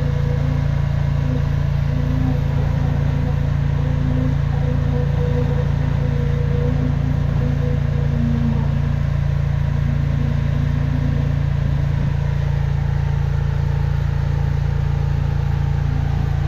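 High-pressure drain jetter's engine and pump running steadily while the nozzle works through a root-blocked sewer pipe. Above it a fainter wavering tone fades away about ten seconds in.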